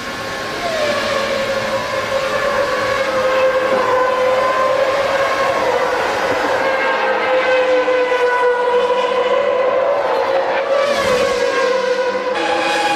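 Formula One car engine at high revs, holding a nearly steady high pitch for about ten seconds as at full throttle. A second tone comes in near the end and drops in pitch, as with lifting off or downshifting.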